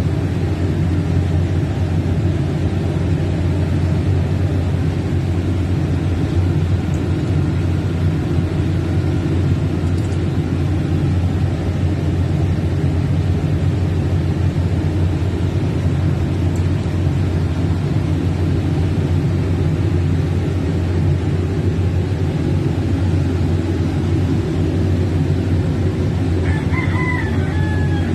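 Diesel generator set's engine running steadily, a constant low drone. A rooster crows briefly near the end.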